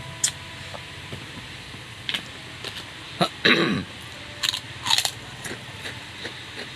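Close-miked eating sounds: irregular chewing, crunching and mouth smacks, with the loudest crunching bursts just past the middle, over a low steady hum.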